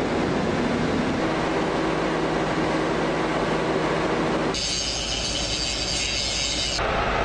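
Heavy rescue machinery at a mine borehole running with a loud, steady mechanical noise. The sound changes abruptly about four and a half seconds in to a harsher, hissing noise, then changes again near the end.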